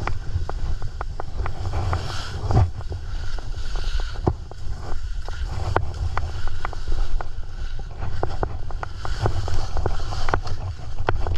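Skis running down a snow slope: wind rumbling on the microphone, a hiss of edges scraping snow that swells and fades with the turns, and frequent sharp clicks and knocks.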